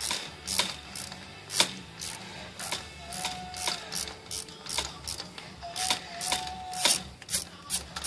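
Hand ratchet wrench clicking in short, uneven strokes, loosening a 10 mm nut on a GM 3.1/3.4 V6 throttle linkage, with a thin squeak heard twice.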